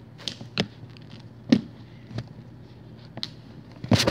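Scattered light clicks and taps from hands handling small objects, about six in all, with one louder knock about a second and a half in and a couple more close together near the end.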